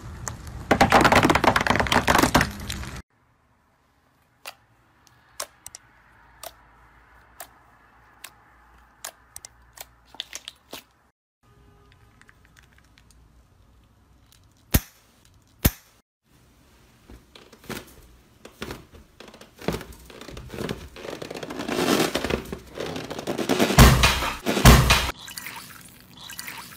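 Crunching and popping for about three seconds as a car tyre rolls over a row of small red balls. Then a run of scattered sharp clicks and crackles, and finally wet squelching of slime being squeezed and kneaded by hand, loudest a few seconds before the end.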